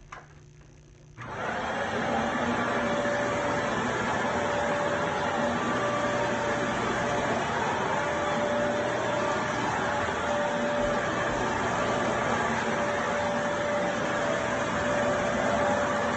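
Fantom Wildcat upright vacuum cleaner switched on about a second in. Its motor spins up within half a second and then runs steadily: a loud rushing noise with a steady whine.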